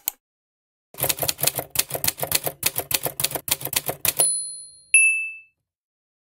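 Typewriter sound effect: a single clack, then a fast run of key clacks for about three seconds, ending in a bell ding. Another ding follows about a second later.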